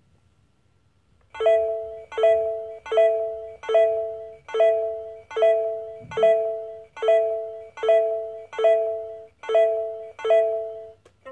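Hasbro Room Tech Beingz toy alarm clock sounding its alarm: a two-tone electronic chime repeated about a dozen times, roughly once every 0.8 seconds, each chime fading away. It starts about a second in and stops near the end.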